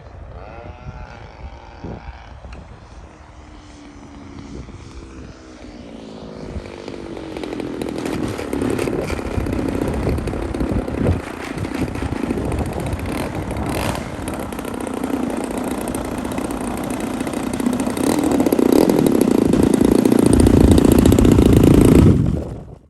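Single-cylinder two-stroke DLE-35RA gas engine of a large RC P-47 Thunderbolt model running; its pitch falls in the first few seconds, then the engine sound grows steadily louder and is loudest near the end, cutting off suddenly.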